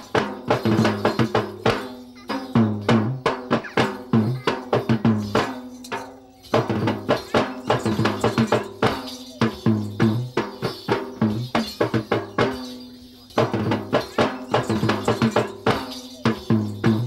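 Yak bera, the two-headed low-country drum of southern Sri Lanka, played by hand in fast rhythmic phrases, with short breaks about six and thirteen seconds in.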